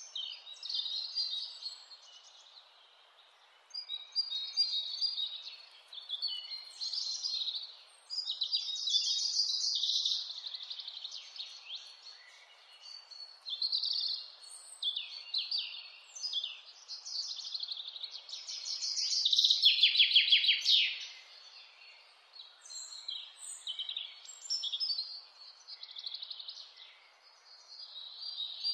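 Wild songbirds singing, a run of chirps and fast trills. The loudest is a rapid trill about two-thirds of the way through that drops in pitch. A faint steady hiss lies underneath.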